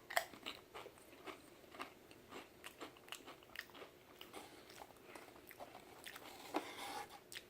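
A man biting and chewing a Pringles potato chip close to the microphone: a run of faint, irregular crunches.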